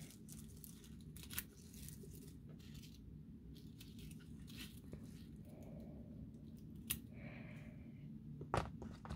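Small scissors snipping raffia bow tails: a few faint, separate snips spread through, with a slightly louder click near the end.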